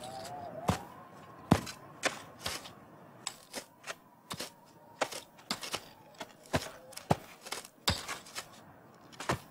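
Digging in earth: irregular sharp knocks and scrapes of a metal tool striking soil and stones, about one or two a second, the loudest about one and a half seconds in.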